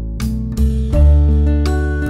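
Instrumental background music with held notes over a steady bass.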